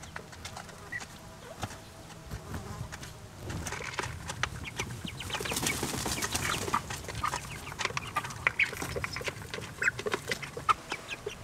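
A flock of young broiler chickens peeping and cheeping, with short calls coming thick and fast from about four seconds in. A brief rush of noise comes around six seconds in, and insects buzz in the background.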